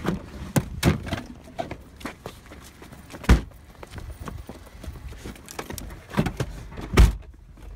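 Irregular footsteps of people running on pavement, mixed with knocks and thuds, with two loud thumps, one about three seconds in and one near the end.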